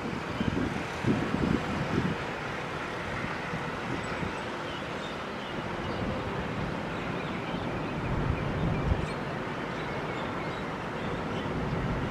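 Steady rumbling noise with wind buffeting the microphone, gustier in the first couple of seconds.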